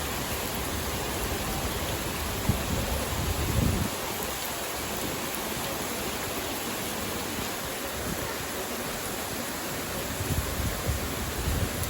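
Steady rush of rain mixed with flowing water from a stream and small waterfall. A low, uneven rumble rises briefly about three seconds in and again near the end.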